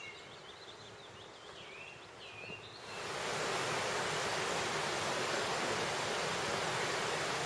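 Birds singing over quiet background noise, then about three seconds in a loud, steady rush of flowing water takes over.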